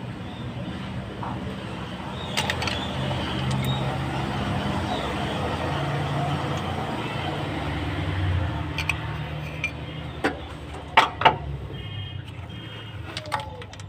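Low rumble of a motor vehicle that swells over several seconds and then eases off, followed by a few sharp clicks or taps about ten to eleven seconds in.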